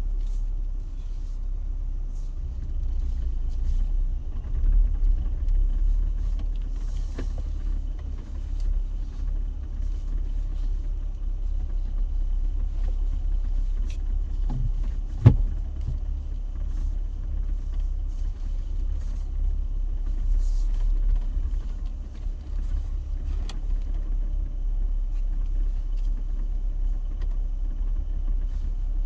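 Jeep driving off-road: a steady low engine and cab rumble with scattered knocks and rattles from the rough ground, and one sharp knock about halfway through.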